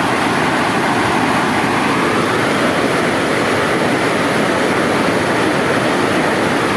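Water pouring over a dam's waterfall, rushing loudly and steadily without a break.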